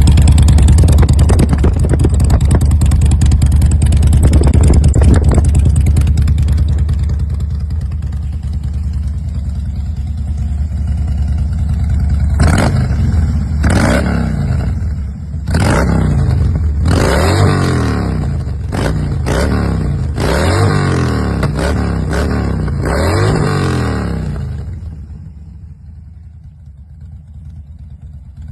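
Sports motorcycle with an aftermarket racing exhaust running loud and steady, then revved in a series of quick throttle blips, each rising and falling in pitch. It drops much quieter near the end.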